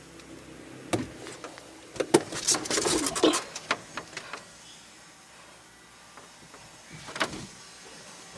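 Handling clatter: a knock about a second in, a loud burst of knocks, rattling and scraping from about two to three seconds in, and another knock near the end.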